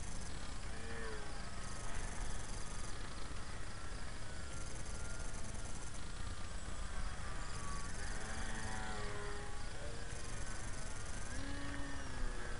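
The small electric motor and propeller of a radio-controlled foam plane buzzing as it flies, its pitch gliding up and down with throttle and passes, over a steady low rumble.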